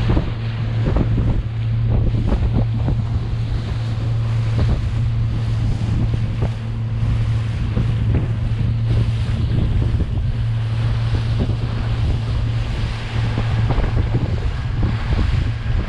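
Motorboat engine running with a steady low drone at speed, with wind buffeting the microphone and water rushing and splashing against the hull.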